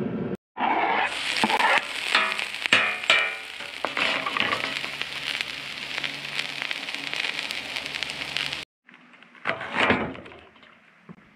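Diced onion sizzling on a hot steel flat-top griddle, a steady hiss with a few sharp scrapes and clicks in the first few seconds. After an abrupt cut near the end, a knife chops a green bell pepper on a plastic cutting board.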